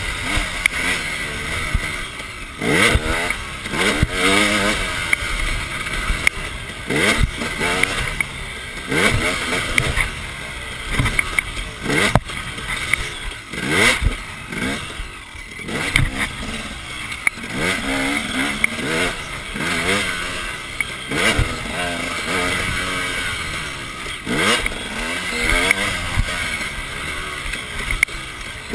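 Two-stroke enduro dirt bike engine revving up and down again and again as it is ridden hard over a rough dirt track, with wind noise and knocks from the bumps.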